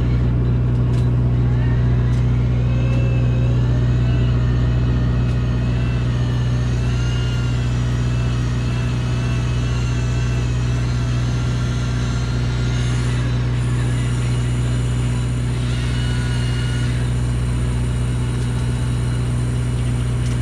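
Fishing boat's engine running steadily with a low hum. Over it, a fainter wavering whine comes from a Shimano Plemio electric reel winding in line against a bent rod, dropping out about two-thirds of the way through.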